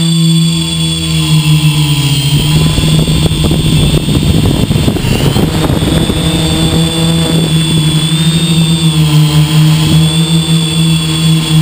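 Hexacopter's electric motors and propellers buzzing steadily, heard up close from the aircraft itself, with a high whine that wavers up and down in pitch. The sound turns rougher and noisier from about two to six seconds in.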